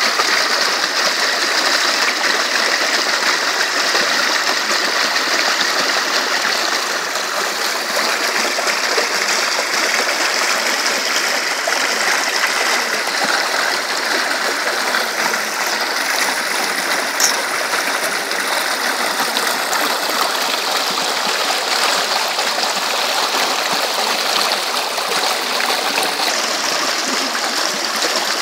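A stream running steadily: a constant rush of flowing water.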